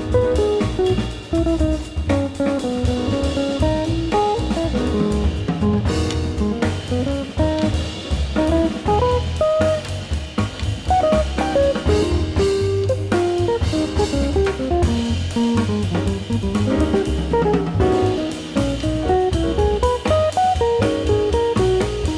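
Jazz quintet playing: an archtop electric guitar leads with a single-note line over piano, upright double bass and drum kit.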